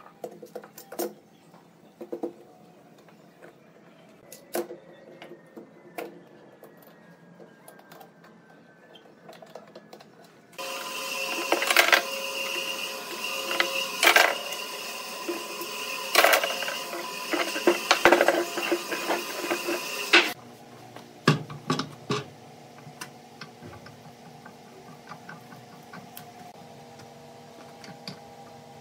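Steel bar clamps being tightened around a glued stack of wooden rings: scattered metal clicks and knocks. About ten seconds in, a loud steady machine hum with sharp knocks sets in for about ten seconds, then gives way to a quieter steady hum with a few knocks.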